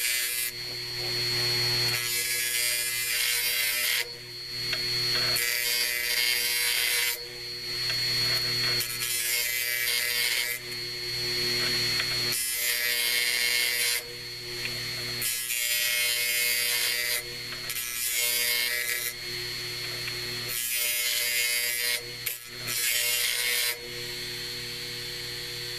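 A small steel cutting wheel is being sharpened against sandpaper on a spinning hard-drive platter, scraping in repeated passes of one to two seconds. Between the passes the steady high whine and hum of the drive motor and computer power supply come through.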